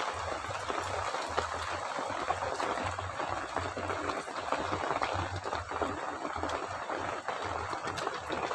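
Hand squishing and mixing raw fish roe with turmeric and salt in a steel bowl: a steady, wet, crackling squelch.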